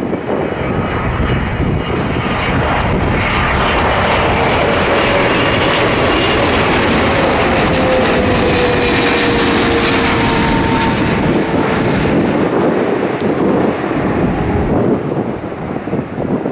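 Boeing 777F cargo jet's twin GE90 engines roaring past on arrival, the roar swelling and holding through the middle with a whine that falls slowly in pitch as it goes by.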